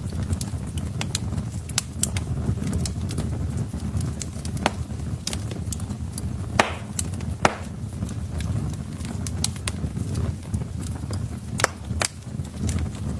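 Wood fire burning in a hearth: a steady low rumble of flames with irregular sharp crackles and pops from the logs, two louder pops about halfway through.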